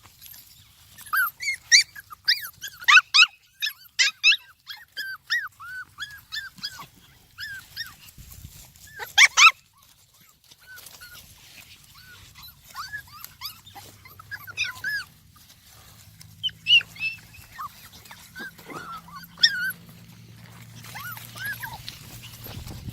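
A litter of young puppies whimpering and squeaking: many short high-pitched cries in quick succession over the first nine seconds or so, then fewer, scattered cries.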